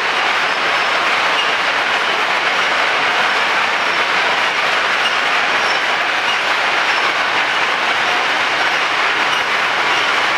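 Disposable-glove production line running: the chain conveyor carrying rows of glove formers through the dipping tank makes a steady, dense mechanical rattle that does not let up.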